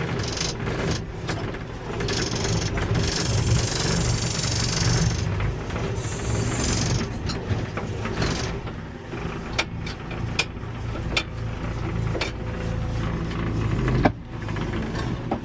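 Backhoe's diesel engine running steadily while its hydraulics pull the bucket in, with a hissing stretch and a few sharp metallic knocks in the second half.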